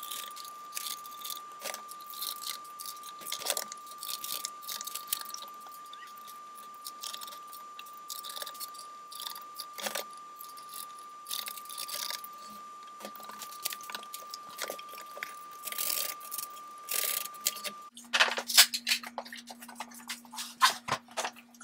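Scattered light metallic clinks and taps of black metal barn door hangers and track hardware being fitted by hand, coming thicker for the last few seconds.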